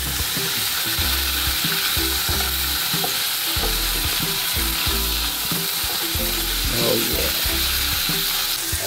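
A whole piece of conch meat sizzling steadily in hot oil with minced garlic in a frying pan.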